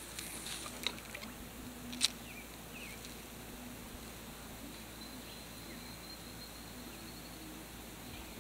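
Quiet lakeside outdoor ambience: a few faint clicks and a sharper tick about two seconds in, a few short high chirps just after, and a faint steady high buzz through the second half.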